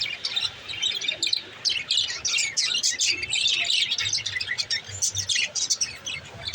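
Small green parrot chirping, a rapid, continuous run of short high chirps and twitters.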